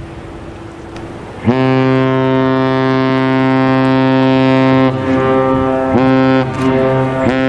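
Great Lakes freighter Wilfred Sykes sounding its ship's horn in salute. One deep, loud blast comes in about a second and a half in and holds for about three and a half seconds, then goes on as shorter blasts with brief breaks in which the pitch sags.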